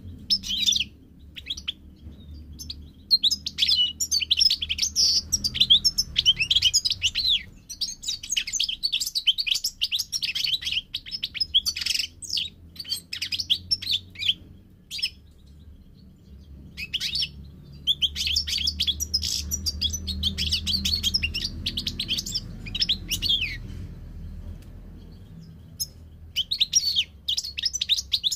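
European goldfinch singing: rapid twittering phrases of high chirps and trills, several bursts a few seconds long separated by short pauses.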